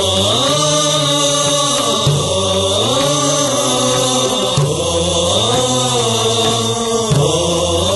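Opening of an Islamic nasheed: long wordless chanted vocal phrases over a low sustained drone, with a soft low beat about every two and a half seconds.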